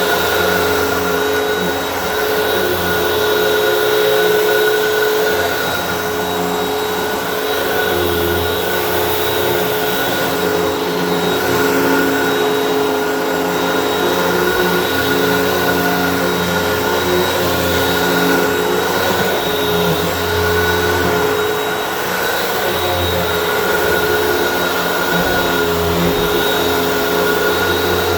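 Hoover WindTunnel upright vacuum cleaner running steadily while picking up dust: a constant motor whine over the rush of air, its level rising and falling slightly as it is worked back and forth.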